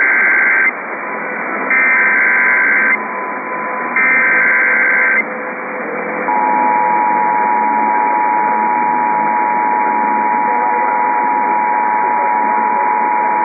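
Emergency Alert System SAME header: three bursts of screeching data tones, each about a second long, then the EAS two-tone attention signal starts about six seconds in and holds steady. It comes in over a radio receiver, with a constant hiss underneath.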